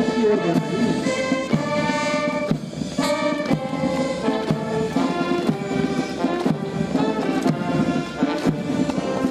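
Brass band playing a march: held brass notes over a steady drum beat.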